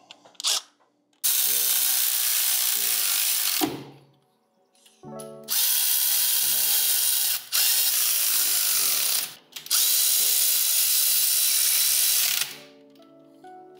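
Cordless electric ratchet running in three long bursts of a few seconds each, the middle one briefly interrupted, as it runs down and snugs the motor plate bolts of an LS V8 engine.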